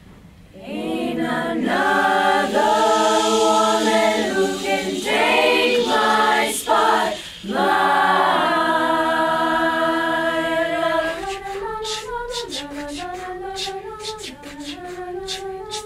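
Girls' a cappella choir singing wordless chords in close harmony, the chords breaking off and re-entering several times. About eleven seconds in, the chords give way to a single sung line over beatboxed vocal percussion of quick, sharp clicks.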